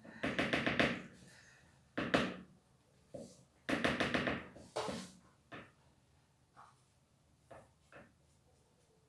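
Cake batter being mixed by hand in a bowl with a utensil: quick runs of rapid stirring strokes against the bowl near the start and again around four seconds in, then a few scattered light knocks.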